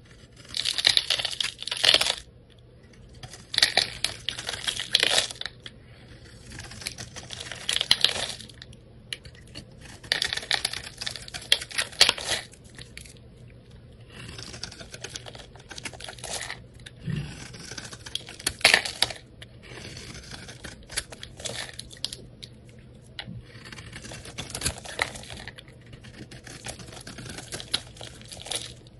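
Snap-off utility knife blade scraping and shaving a crumbly bar of soap, giving crackly, crunchy scrapes. For about the first twelve seconds the strokes are long and loud, about one every two seconds. After that they are shorter, quieter and closer together.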